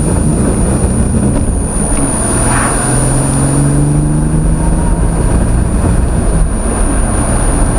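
Turbocharged GM 3800 Series II (L36) V6 in a Pontiac Grand Prix running under load with a misfire, its pitch rising a little about two and a half seconds in. A thin steady high whine runs underneath.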